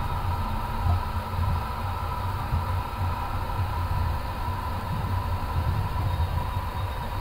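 Flight-deck noise of an Airbus A350 taxiing, its Rolls-Royce Trent XWB engines at idle: a steady low rumble that wavers in strength, with a faint steady whine and hiss above it.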